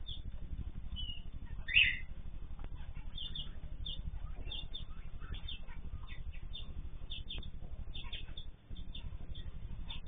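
Small cage birds chirping with many short high calls, one louder call about two seconds in, over a steady low hum.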